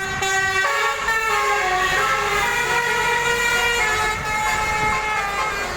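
Indonesian bus 'telolet' horn, a multi-trumpet air horn, playing a tune of held notes that change pitch every half second or so, several notes sounding together, over a low rumble.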